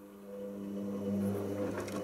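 Hoover Optima washing machine's drum motor starting up with a rising, steady hum as the drum begins a wash turn during the pre-wash. From about halfway in, the wet towels tumble and splash inside the drum.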